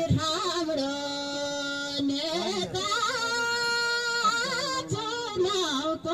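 A woman sings a Thadi Bhaka, a Nepali folk song of the Karnali hills, solo and unaccompanied into a microphone. She holds long notes and ornaments them with short bending turns between phrases.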